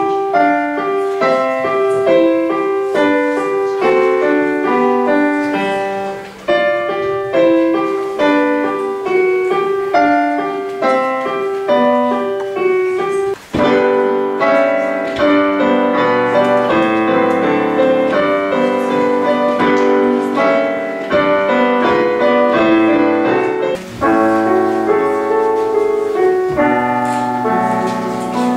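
Digital piano being played, a brisk pattern of mid-range notes. About 13.5 seconds in the playing breaks off briefly and a fuller passage with low bass notes follows, played four hands by two people at one keyboard.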